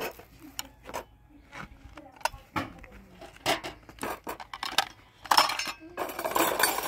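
Dishes, plates and metal trays clinking and knocking together as they are washed by hand in a plastic basin, in irregular clatters that get louder after about five seconds.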